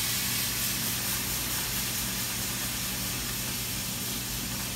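Marsala wine sizzling and hissing in a hot frying pan of chicken breast and mushrooms, deglazing with a burst of steam. The hiss is loudest at first and eases slowly.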